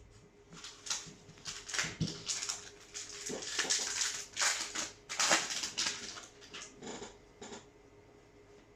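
Foil booster-pack wrapper crinkling and tearing as it is opened by hand, in a quick run of crackly rustles that dies away near the end.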